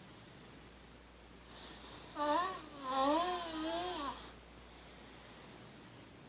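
A sleeper snoring: one long, wavering, pitched snore starting about two seconds in and lasting about two seconds.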